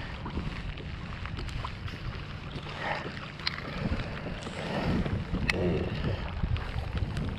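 Wind buffeting the microphone and water lapping around a kayak, with a few light clicks.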